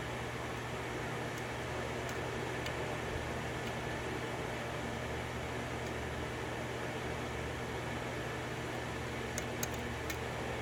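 Steady background hum, like a fan or room appliance, with a few faint light clicks of a pick working the pins of a 6-pin Dom pin-tumbler lock, a small cluster of them near the end.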